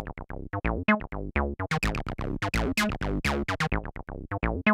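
Behringer TD-3 analog bass line synthesizer (a Roland TB-303 clone) playing a fast acid bassline pattern of short pitched notes. Each note starts bright and its brightness drops away quickly.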